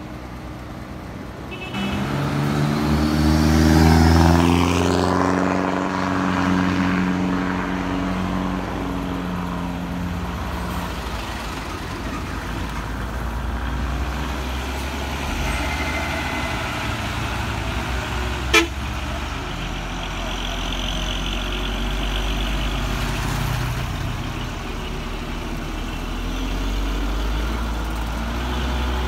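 Heavy diesel truck engines. One comes in about two seconds in and rises in pitch as it pulls under load, loudest around four seconds. Steady engine and road noise from passing vehicles follows, with one sharp click a little past the middle.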